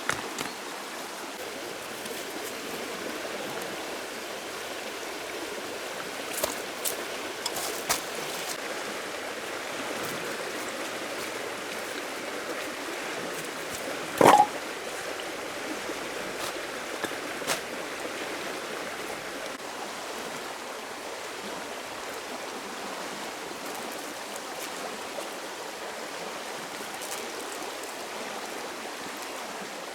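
Steady rushing water, with a few scattered clicks and one sharp knock about 14 seconds in.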